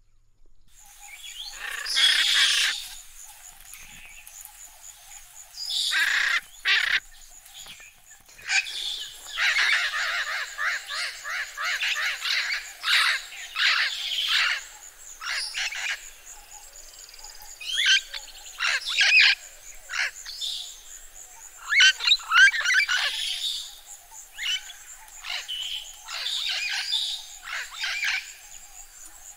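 Parrots and macaws calling: loud, harsh squawks in bouts every few seconds, some single and some in rapid runs. A faint steady high hiss runs underneath.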